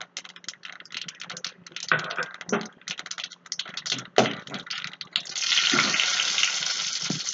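Mustard seeds and dal crackling and popping in hot oil in a steel wok during tempering, a rapid irregular patter of pops. About five seconds in, a dense steady sizzle takes over.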